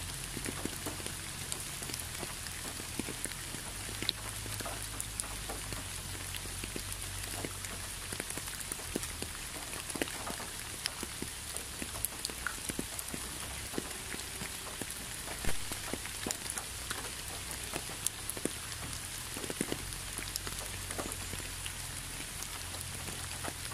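Steady rain: a constant hiss dotted with the clicks of single drops, one louder drop about two-thirds of the way through.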